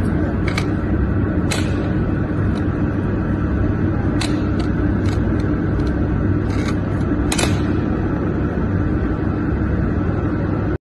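Steady machine hum and rumble of workshop equipment, with scattered light clicks as the welded steel workpiece is handled and knocks against the steel bench.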